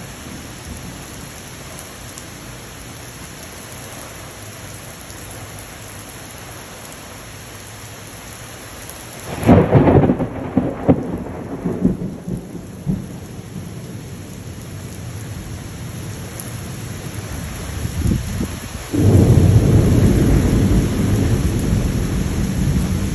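Steady heavy rain falling, with a sudden loud, crackling clap of thunder about nine seconds in that rolls on for a few seconds, and a second, deeper rumble of thunder starting sharply near the end.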